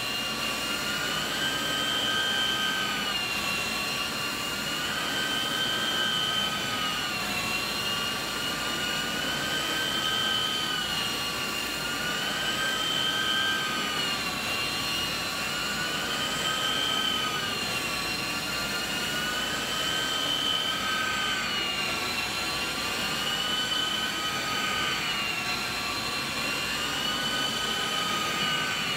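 Rotovac rotary carpet extraction tool drawing suction from a truck-mounted hot water extraction machine across wet carpet. It makes a steady whistling whine of several high tones over a rushing hiss, the tones rising and falling together about every three and a half seconds.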